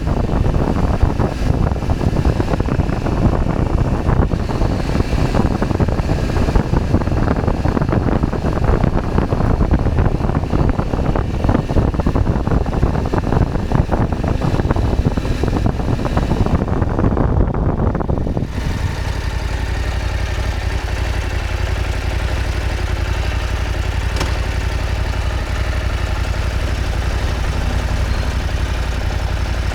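KTM 790 Adventure's parallel-twin engine running under way, mixed with wind rush. About 18 seconds in the wind noise cuts away abruptly and the engine settles to a low, steady idle.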